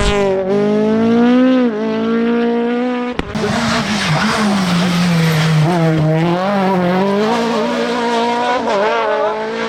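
F2000 rally car engine running hard at high revs, its pitch dipping and climbing again several times as the driver lifts, shifts and accelerates through the stage, with a sharp crack about three seconds in.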